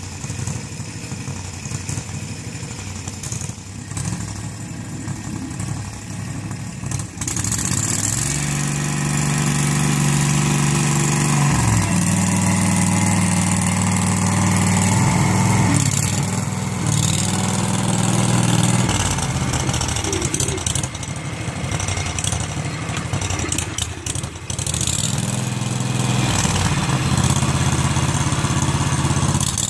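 Rapid Spezial single-axle tractor engine running at a low idle, then louder from about seven seconds in as it pulls a loaded hay wagon, its pitch stepping up and down several times.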